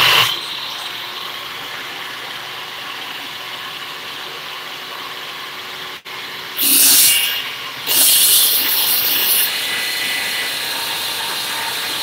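Table saw running while an aluminum plate is fed slowly into the blade. The blade bites into the metal in two louder, high-pitched spells, about six and a half and eight seconds in, and the sound drops out for an instant just before them.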